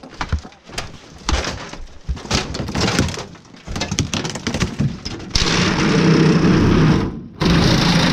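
Debris cracking and clattering as pieces are broken apart, then about five seconds in a power tool starts up, loud and steady with a low hum, stops for a moment near the end and starts again.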